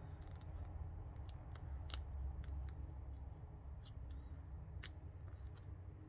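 Crisp paper rustling with scattered small clicks and crackles as a coffee-dyed paper envelope flap is pressed and worked into a tight-fitting pocket, over a low steady hum.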